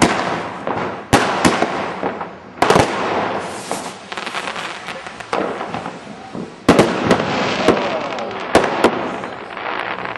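Fireworks going off: about a dozen sharp bangs at irregular intervals, each followed by echo, over a steady crackle.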